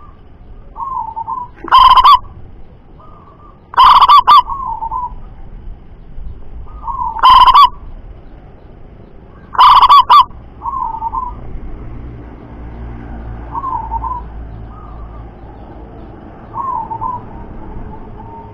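Zebra doves (perkutut) cooing. Four very loud calls come in the first ten seconds, and softer rolling coos from other birds keep answering throughout.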